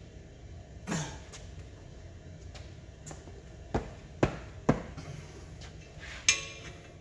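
Sharp metallic knocks from a three-jaw gear puller being cranked tight with a wrench on a tractor's cast flywheel. There is one knock about a second in, three more about half a second apart around four seconds, and a louder clank a little after six seconds that rings briefly.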